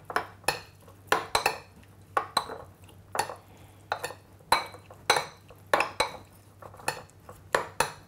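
Metal spoon stirring a wet, chunky dressing in a ceramic bowl, clinking sharply against the bowl about twice a second in an uneven rhythm.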